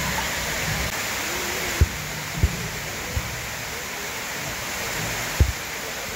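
Steady rushing of a waterfall, with a few short low thumps scattered through it.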